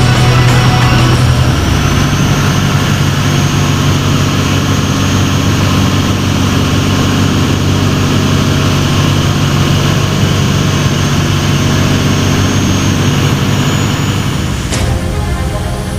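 Volvo Penta D6 six-cylinder marine diesel running steadily after its top overhaul, its pitch stepping up slightly about a second and a half in. A sharp click near the end, after which the sound changes.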